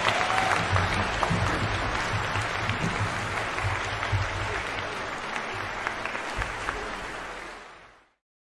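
Audience applauding in a concert hall, a dense patter of clapping that fades out near the end.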